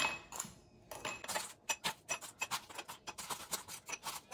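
Ice cubes lifted with metal tongs from a stainless steel bowl and dropped into a glass: a quick, irregular run of clinks and clatters of ice and tongs against the bowl and glass, a few of them ringing briefly.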